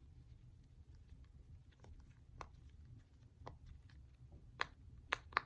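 Silicone push-pop fidget bubbles being pressed: faint scattered pops that become louder and quicker near the end.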